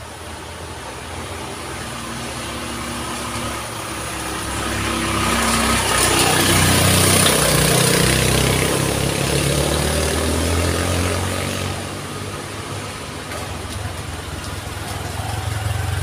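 Small motorcycles passing one after another, their engines building to a loud close pass about six to eight seconds in, easing off, then rising again near the end as another motorcycle approaches.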